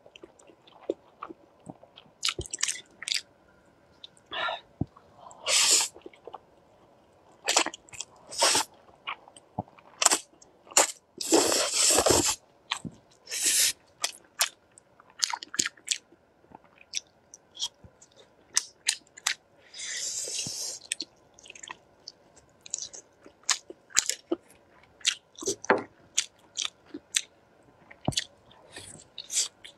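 Close-miked eating of spicy fire noodles: short slurps, wet mouth clicks and chewing, with a longer slurp a little before halfway through.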